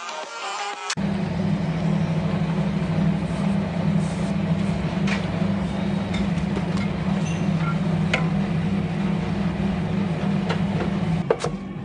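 A steady low machine hum starts about a second in, with a few faint clicks over it, and stops just before the end.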